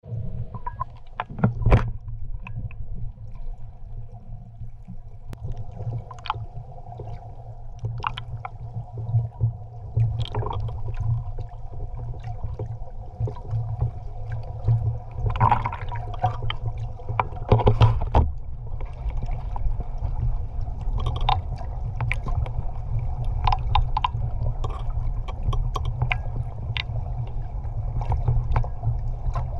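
Muffled underwater sound from an action camera held just below the surface: a steady low rumble of moving water with scattered clicks and knocks, and a burst of louder crackling splashes about 15 to 18 seconds in.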